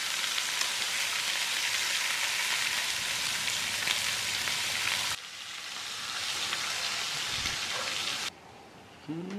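Food sizzling in a hot pan: a steady crackling hiss that changes abruptly about five seconds in and cuts off shortly after eight seconds.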